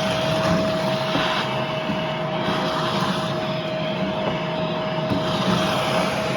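Steady, loud rushing machine noise with a constant whine running through it.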